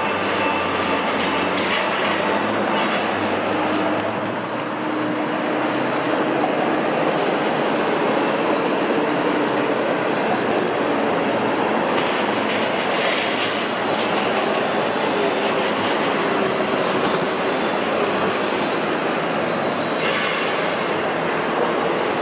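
Steady, dense machinery and city noise with faint high metallic squeals now and then.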